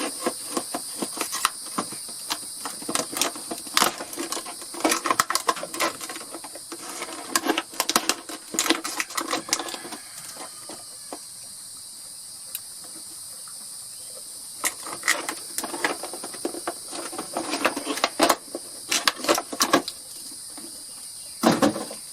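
Packaging being cut open with a pocket knife and a propane hose being unpacked: irregular rustling and clicking, in bursts through the first half and again near the end. Underneath is a steady, high-pitched insect chorus.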